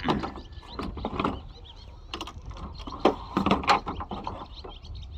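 Metal clanks, knocks and scrapes as a solar LED light fixture is slid onto the end of an aluminium pole arm and handled, a series of separate knocks spread out with scraping between them.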